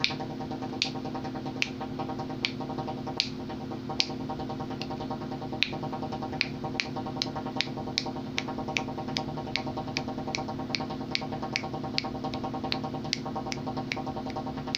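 Water heater making a steady hum with sharp, high ticks repeating over it, about one a second at first, then quicker, two or three a second, from about six seconds in.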